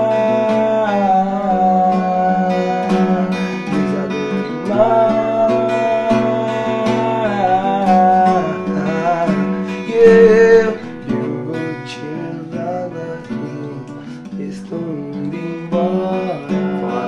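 Acoustic guitar played live with a man singing over it, holding long notes in the first part, with a loud held note about ten seconds in; the singing thins out after that while the guitar carries on.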